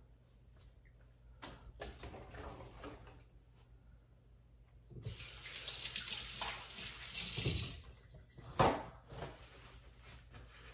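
Kitchen sink tap running for about three seconds, starting about five seconds in, followed shortly after it stops by a single sharp knock.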